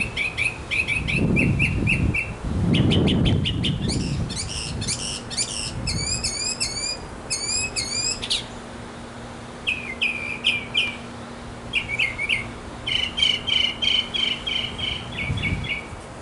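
Northern mockingbird singing: a run of different phrases, each a short note repeated several times before switching to a new one, some of them quick rising sweeps.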